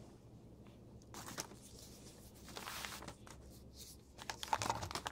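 Faint rustling and light clicks of a soft tape measure and a plastic bottle being handled, busiest near the end.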